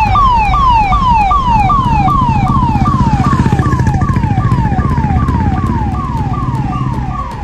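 Police vehicle siren sounding a fast repeating falling wail, about three downward sweeps a second, over a low rumble.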